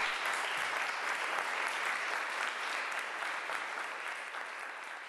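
Audience applauding: many people clapping, fading gradually over the last couple of seconds.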